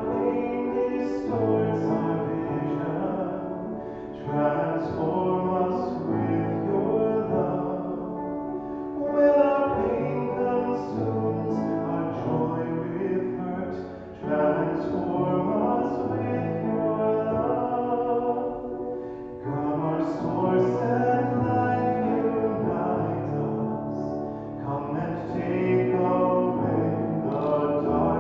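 Singing accompanied on a grand piano, held notes with a slight waver.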